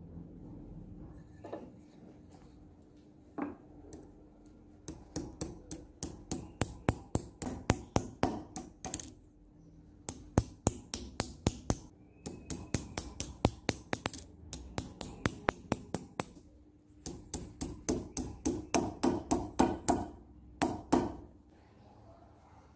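Hammer striking a small flat metal strip on the anvil of a bench vise: quick runs of sharp metal-on-metal taps, about four a second, broken by short pauses. A couple of lighter knocks come first as the strip is set in place.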